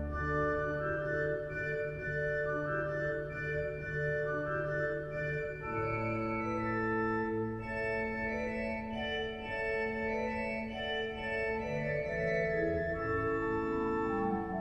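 Slow background music of long held keyboard chords that change every second or two.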